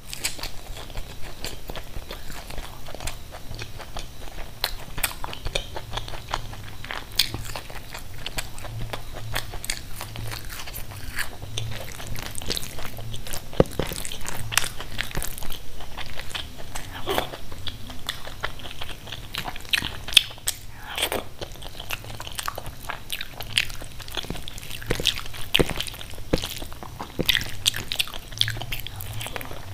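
Close-miked eating: biting and crunching fried snacks and chewing mouthfuls of khichdi, with many small irregular clicks and crackles of crunching and mouth sounds.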